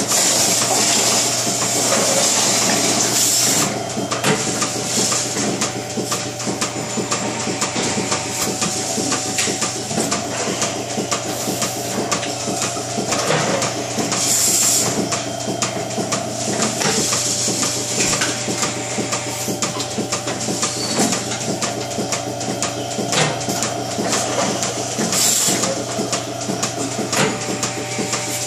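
Robotic milking machine at work. Its robot arm moves under the cow and attaches the teat cups, with a steady machine hum, constant clicking and knocking, and several short bursts of hissing air.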